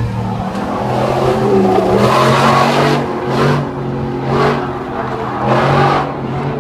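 Ford pickup truck drifting, its engine revving hard in repeated surges, with three short bursts of throttle about a second apart in the second half.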